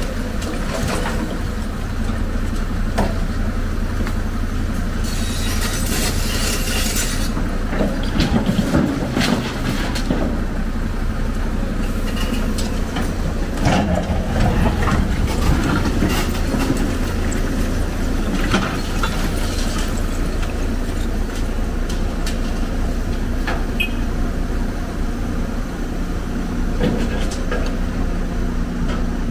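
Excavator's diesel engine running steadily, with scattered clanks and knocks of scrap metal being grabbed and shifted in a steel dump truck bed. There is a brief hiss about six seconds in.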